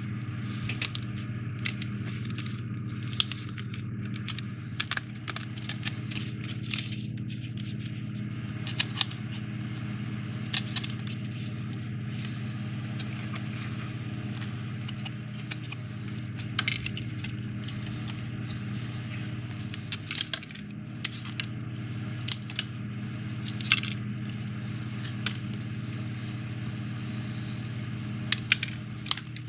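Sharp, irregular clicks and crackles as foam-board 3D puzzle pieces are pressed out of their sheets and their tabs pushed together. A steady low hum runs underneath.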